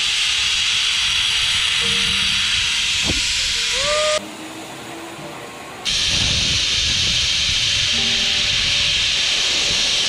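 Steady, loud rushing hiss of a zip line trolley running along the steel cable during a ride, mixed with wind rush on the microphone. It drops away sharply for about a second and a half around four seconds in, then comes back.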